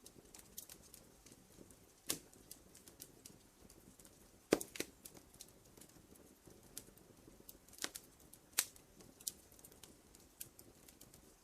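Scattered sharp clicks and snaps at irregular intervals, a few of them louder, over a faint steady hiss.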